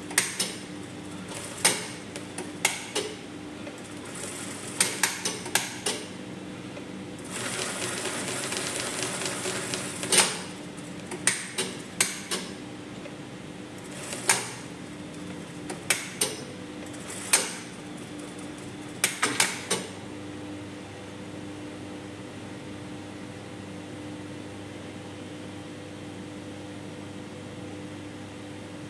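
Brother industrial sewing machine being worked: sharp clicks and knocks come now and then, and one run of stitching starts about seven seconds in and lasts about three seconds. A steady hum sits underneath and is left alone for the last third.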